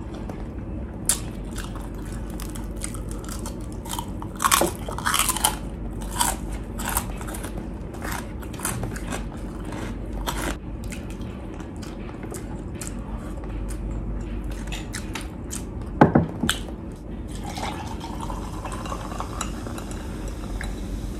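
Close-up chewing of crispy chicharon pork cracklings: a string of sharp crunches, the loudest about four to five seconds in and again around sixteen seconds. Near the end, cola is poured from a plastic bottle into a glass mug, with a rising filling tone and a fizzing hiss.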